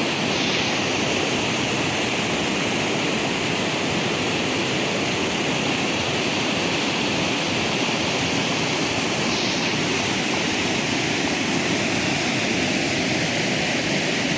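Waterfall, its water rushing in a steady, unbroken wash of noise.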